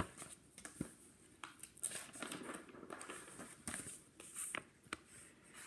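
Pages of a large paperback picture book being handled and turned: faint paper rustling with scattered small taps and clicks.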